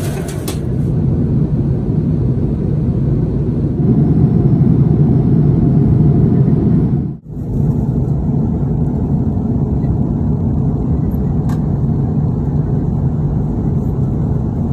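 Steady low rumble of an Airbus A330-300 cabin in flight, the drone of the engines and rushing air. It drops out briefly about halfway through.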